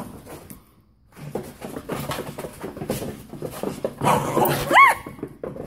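Small dog tussling with a plush toy: scuffling and dog play noises, with a brief lull about a second in. A louder stretch near the end closes with a short high-pitched squeal that rises and falls.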